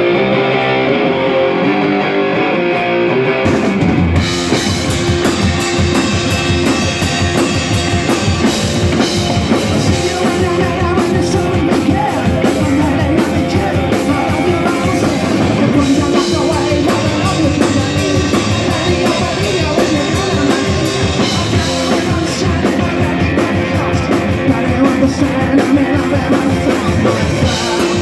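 Punk rock band playing live through a PA: electric guitar alone at first, then drums, bass and a second guitar crash in together about four seconds in, with a singer on lead vocals.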